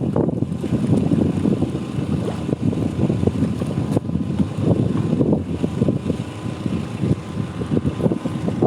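Wind buffeting the microphone: an uneven, gusty rumble.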